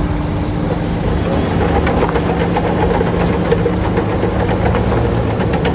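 Heavy diesel engine of earthmoving machinery running steadily, with rapid clicking and clattering starting about two seconds in.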